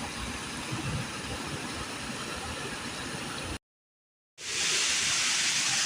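Steady rushing noise with a low rumble, broken by a moment of dead silence a little past halfway. Then a louder, even, hissing rush of falling water from a natural waterfall close by.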